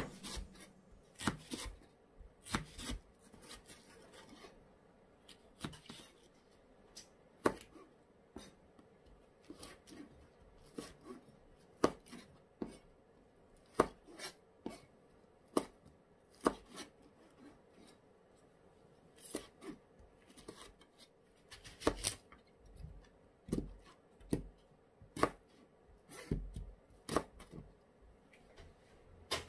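Kitchen knife chopping on a cutting board in irregular single strikes, roughly one every half second to a second, with a short lull partway through.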